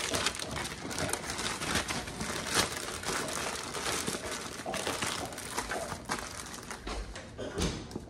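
Plastic bag crinkling and rustling as it is handled and folded shut, with a steady run of small crackles.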